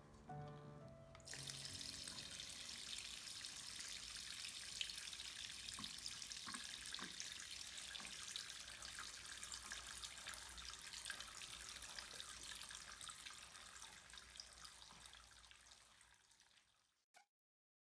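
Water pouring from a tank's outlet spout and splashing into a basin of water, a steady splashing rush that starts about a second in and fades out near the end.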